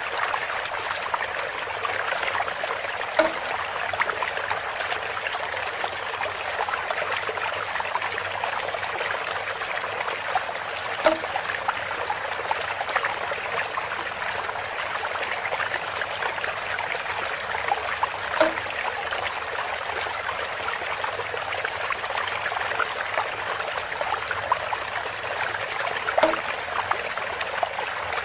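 Water trickling and splashing steadily through a bamboo spout, with a brief hollow knock or plop four times, about every seven to eight seconds.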